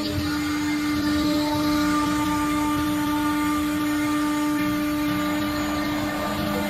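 CNC router spindle running at a steady speed while its end mill cuts through a sheet: a steady pitched whine over the rasp of the cut.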